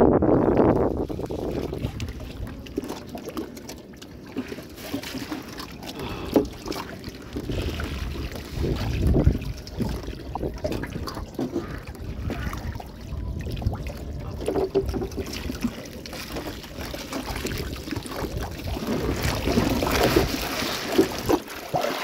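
Water dripping and splashing around a small boat as a fishing net is hauled in from floodwater, with scattered knocks against the boat and a low wind rumble on the microphone.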